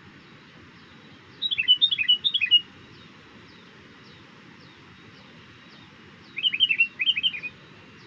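Sooty-headed bulbul (kutilang) calling: a short burst of quick, bubbly notes about a second and a half in, then another burst about six seconds in.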